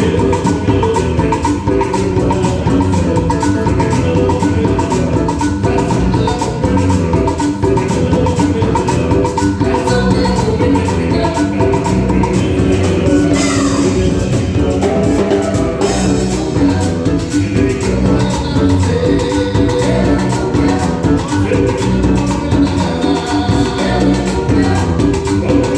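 Live cumbia band playing, with a steady, dense percussion beat.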